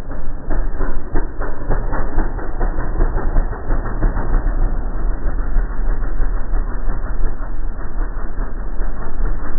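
Motorcycle engine running with a strong low rumble and a rapid rhythmic clatter, distinct clicks in the first few seconds that merge into a steadier mechanical noise.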